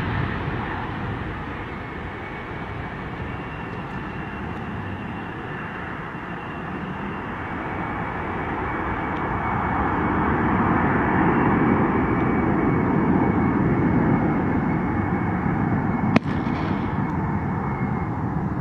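McDonnell Douglas KC-10 Extender's three turbofan engines at takeoff thrust as the tanker lifts off and climbs away: a steady jet rumble with a faint high turbine whine. The rumble eases, then swells again midway through. A single sharp click sounds near the end.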